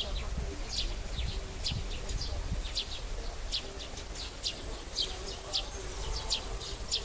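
Songbirds chirping over and over in short, quick, falling high notes, about two a second, over a low steady rumble.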